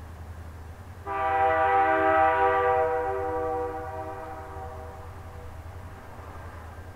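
Diesel freight locomotive's air horn sounding one long blast, a chord of several steady tones that starts abruptly about a second in and fades away after a few seconds, sounded as the train approaches a level crossing. A low steady rumble runs underneath.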